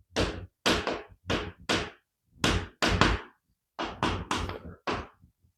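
Handwriting strokes: about a dozen short, dry knocks and scrapes in irregular quick groups, with brief pauses between them.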